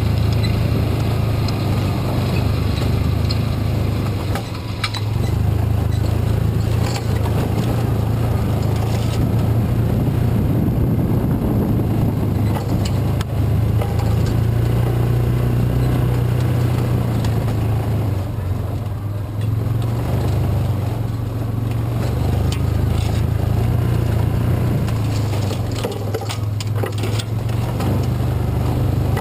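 Yamaha Rhino side-by-side's single-cylinder engine running steadily on the move, with a few short knocks and rattles over rough trail.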